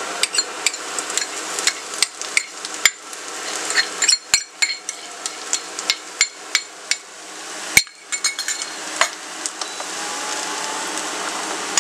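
Spoon and spatula tapping and scraping against a non-stick pan as crushed ginger and garlic are stirred into onions frying in ghee, with a sizzle underneath. The knocks come irregularly, one louder about eight seconds in, and the sizzle is steadier near the end.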